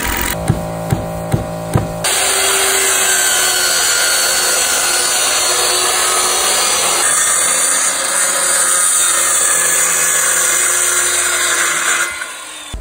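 Four evenly spaced thumps over the first two seconds, then a circular saw running and cutting along a wooden board, a steady loud buzz for about ten seconds that drops off near the end.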